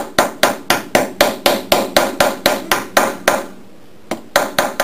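Small hammer tapping a roll pin into the steel output shaft of an AndyMark Toughbox gearbox, metal on metal: a quick run of about fourteen even strikes, about four a second, a short pause, then three or four more near the end.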